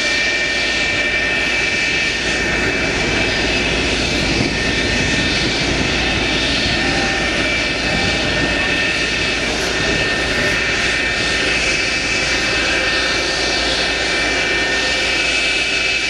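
Lockheed F-104 Starfighter's J79 turbojet running at taxi power: a steady, loud jet roar with a high, steady compressor whine on top.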